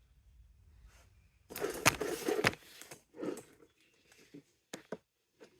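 Handling clatter: a container being fetched and set down among scrap plug parts, with a dense burst of rattling and two sharp knocks about two seconds in, then a few lighter clicks and taps near the end.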